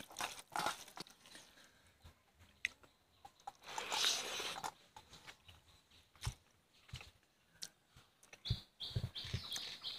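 Fingers mashing rice and curry on a steel plate with faint squelches and taps, then a mouthful being eaten and chewed. A bird chirps repeatedly near the end.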